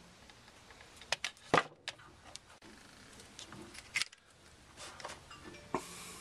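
Sharp clicks and snips of diagonal wire cutters stripping insulation off a wire. The loudest cluster comes about a second and a half in, with single clicks at about four seconds and again near the end.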